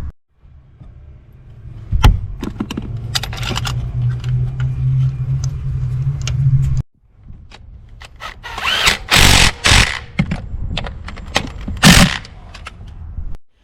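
Power-tool running with clicks and knocks of tools against metal, and loud bursts of noise, in short cut-together clips of work on the engine bay.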